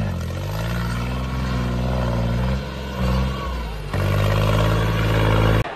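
Tractor diesel engine running, its pitch rising and dipping a little; just before four seconds in the sound changes abruptly to a second, steadier tractor engine.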